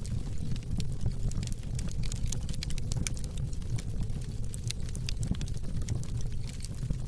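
Fire crackling, with many sharp irregular pops and snaps over a steady low rumble of the flames.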